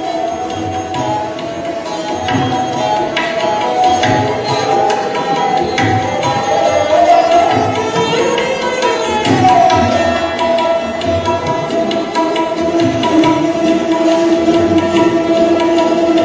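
Dilruba, a bowed Indian string instrument with sympathetic strings, playing a sustained melody with sliding notes over repeated percussion strokes.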